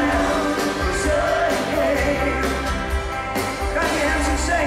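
Live rock band playing with a lead voice singing over electric guitars, bass and drums, heard from the audience with a heavy, boomy bass.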